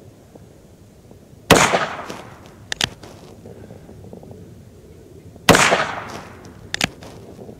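Two shots from a Ruger Single-Six .22 LR revolver, about four seconds apart, each with a short fading echo. A quieter sharp double click follows each shot about a second later: the single-action hammer being cocked for the next round.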